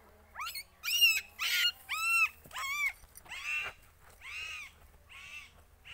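A dog yelping: a run of short, high, arching cries, about two a second, louder at first and softer in the second half.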